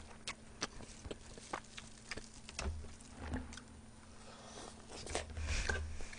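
Close-miked eating: quiet chewing of braised chicken, with scattered soft mouth clicks and smacks.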